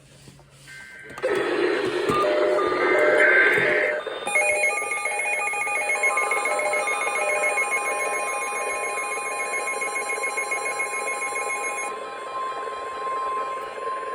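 NOAA Weather Radio's 1050 Hz warning alarm tone: one steady high tone starting about six seconds in and held to the end, the signal that a new warning message follows. It comes after a loud burst of rough noise, and for several seconds it is overlaid by pulsing electronic beeping.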